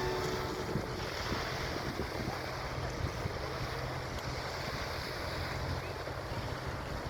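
Wind buffeting the microphone aboard a Caledonian MacBrayne car ferry, over a steady low hum from the ship and the wash of sea water.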